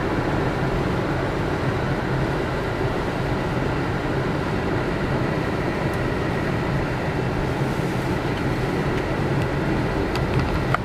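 Steady road noise inside a 2010 Chevy Cobalt's cabin as it drives along a snow-covered highway: an even rumble of tyres and engine that stays level.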